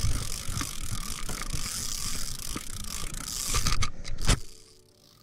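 Fishing reel being cranked to bring in a small hooked fish, a rapid ratcheting clatter of its gears, ending in a few sharp clicks and stopping abruptly about four seconds in.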